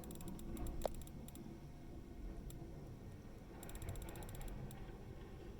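Short runs of fast, faint mechanical clicking, about ten clicks a second, ratchet-like: a few near the start and a longer run past the middle, over a low rumble.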